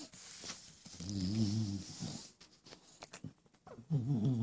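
A bulldog making two low, wavering grumbles, the first about a second in and the second near the end.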